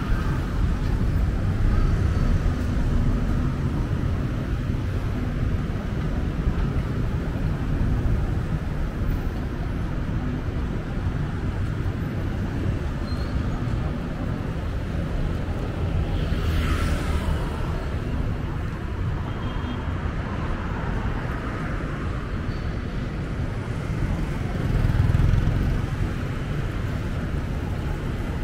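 Steady road and traffic noise from a vehicle driving along a city street: a continuous low rumble of engine and tyres, with cars and motorbikes around it. A brief hiss stands out a little past halfway, and the rumble swells briefly near the end.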